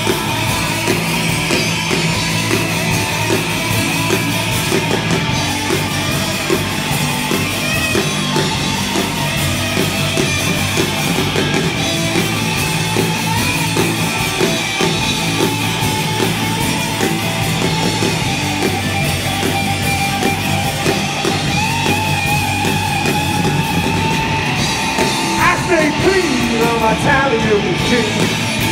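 Live garage rock band playing loud and continuous: two electric guitars, bass guitar and a drum kit.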